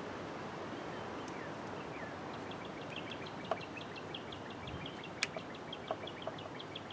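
Steady faint outdoor background with a bird chirping in a quick run of short high notes from about two seconds in, and a few small clicks of a screwdriver working a terminal screw on a push-button switch.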